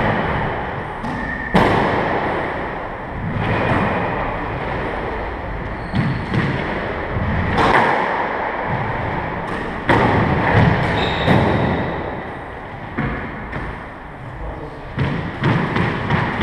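Squash ball being hit by rackets and striking the court walls during a rally: sharp thuds spaced a few seconds apart, each ringing on briefly in the enclosed court. Near the end comes a quicker run of lighter knocks.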